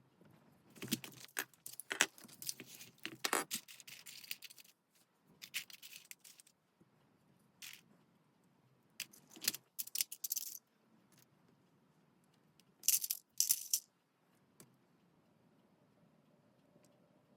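Paper and craft materials being handled: crisp rustling and crinkling in several bursts separated by short pauses, the longest run in the first few seconds.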